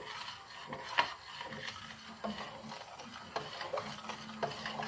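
Stirring a thick cooking cheese mass in a large stainless-steel pot: the utensil scrapes and clicks irregularly against the pot, with the loudest knock about a second in.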